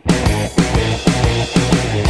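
Background rock music with electric guitar and drums, the beat landing about four times a second.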